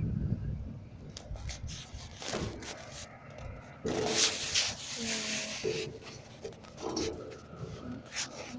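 Handling noise from a phone being moved about and covered by a hand: rubbing and scraping on the microphone with scattered clicks, and a few short pitched squeaks in the second half.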